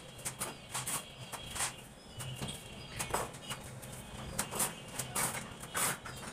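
Steel trowel scraping and tapping as mortar is pressed into the gap around a door frame: a string of short, irregular scrapes and knocks.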